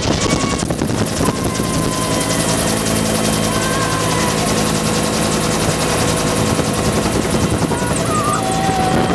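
Bell UH-1 Huey helicopter in flight, heard from inside its open-doored cabin: the rotor and turbine engine run loud and steady, with a fine rapid beat from the rotor.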